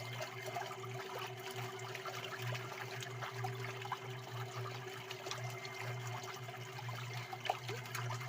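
Water trickling and splashing with scattered small clicks, over a steady low hum.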